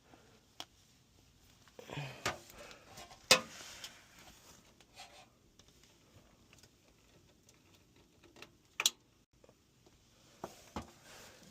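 A few scattered sharp clicks and taps from hands and a jumper wire working at an HVAC unit's low-voltage terminals, the loudest about three seconds in and a quick double click later on.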